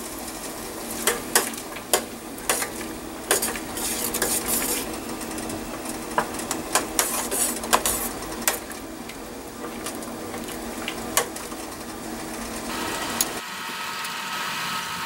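Metal spoon stirring a pot of simmering broth, clinking and scraping against the stainless steel pot many times at an uneven pace, over a steady hiss from the hot liquid. The clinks thin out after about nine seconds.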